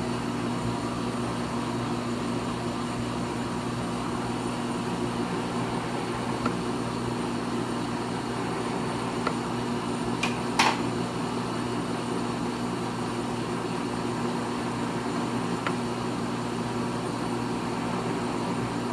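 Steady electric hum of a three-phase lathe motor and its phase converter running, with one sharp click about ten and a half seconds in and a few fainter ticks.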